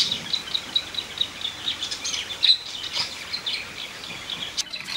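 Small birds chirping: a quick, steady run of short high chirps, several a second, with a couple of louder calls about halfway through.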